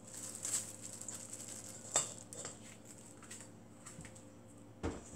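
Squeezed, blanched spinach being handled and dropped into a stainless steel mixing bowl by a plastic-gloved hand, with soft rustling at first. A sharp metallic clink comes about two seconds in, and a short knock near the end.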